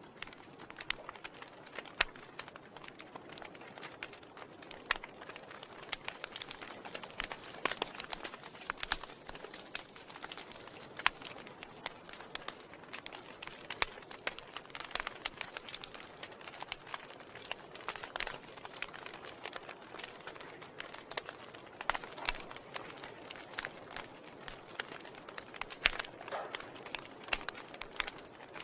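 Wood fire burning in a fireplace, crackling: irregular sharp pops and snaps of varied loudness over a steady soft hiss.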